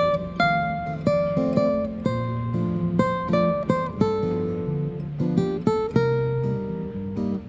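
Background music: an acoustic guitar picking and strumming a steady run of chords, each ringing out and fading.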